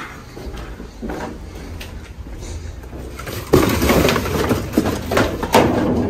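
Cardboard boxes and bagged recycling being handled and shifted about: an irregular crackling and rustling that grows louder and busier about three and a half seconds in.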